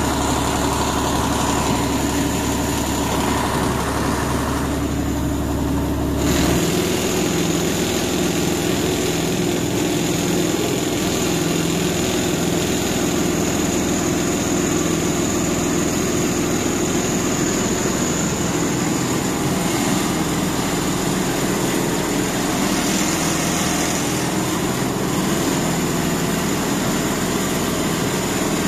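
Rice combine harvester's diesel engine running steadily; its low hum changes abruptly about six seconds in.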